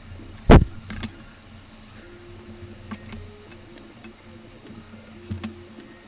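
Small clicks and taps of hands and tools handling phone parts during a screen repair, with one loud thump about half a second in.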